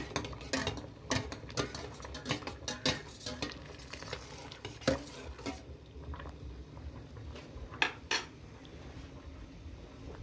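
A metal spoon stirring in a stainless steel saucepan of hot water, clinking quickly and repeatedly against the pan's sides for the first five seconds or so. Two more clinks follow about eight seconds in.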